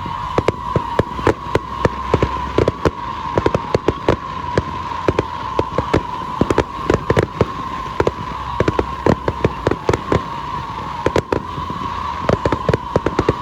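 Fireworks display: a rapid, continuous string of sharp bangs and crackles, several a second, over a steady high tone.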